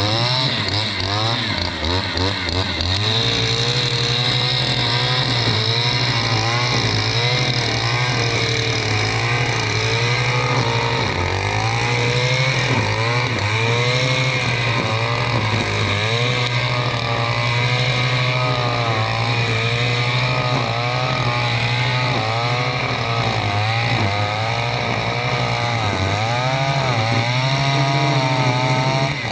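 Stihl FS 461 C-EM brushcutter's two-stroke engine running loud at high revs, its pitch dipping and recovering over and over as the blade bites into dense one-year-old undergrowth.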